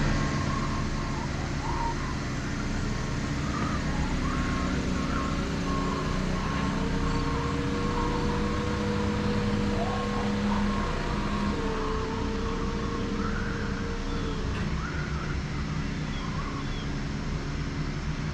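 Engine of utility work equipment or a truck running steadily, with a higher held tone joining in for several seconds midway and small faint chirps over it.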